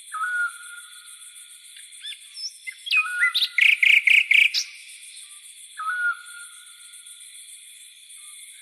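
Bird calls over a steady insect chorus: a short whistled note that drops and then holds comes twice, and about three seconds in a loud burst of rapid chirps lasts about a second and a half.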